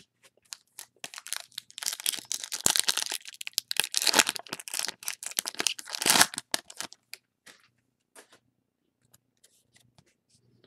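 Foil trading-card pack wrapper being torn open and crinkled by hand, a dense crackling from about a second in that dies away around seven seconds, followed by a few faint ticks as the cards are handled.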